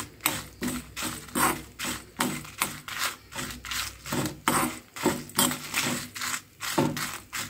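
A metal spoon scrapes and stirs whole spices, coriander seeds, dals and dried red chillies, as they roast in a small kadai. The strokes are quick and even, about two to three a second.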